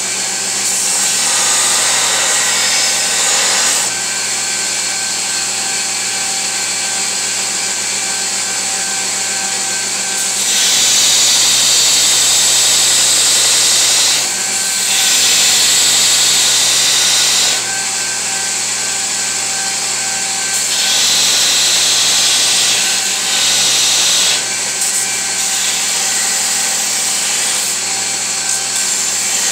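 Belt grinder running steadily while a steel knife blank is pressed to the abrasive belt in several passes of a few seconds each, each pass adding a louder, hissing grind of steel on the belt. The blade's outline is being profiled.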